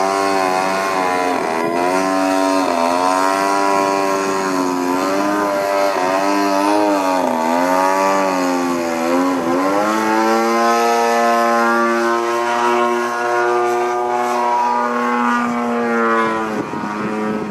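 Gasoline engine and propeller of a Hangar 9 Cap 232 80-inch RC aerobatic airplane in flight. For the first ten seconds or so the pitch rises and falls, then it holds a steady note before dropping near the end.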